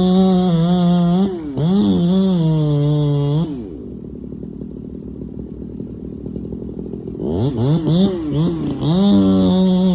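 Two-stroke chainsaw at full throttle cutting into a Siberian elm trunk, its pitch sagging as the chain bites. About three and a half seconds in it drops to idle, then revs back up into the cut about seven seconds in.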